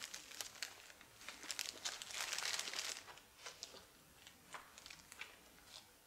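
Clear cellophane wrapping around a flower bouquet crinkling as it is handled and set down, dense for the first three seconds, then a few scattered crackles.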